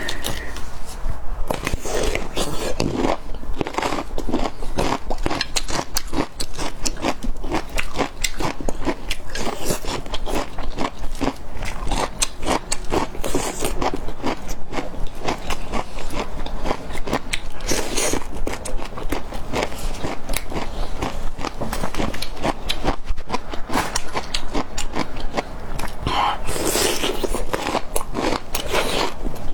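Bamboo shoot tips being bitten and chewed close to the microphone: a dense, continuous run of crisp crunches and crackles.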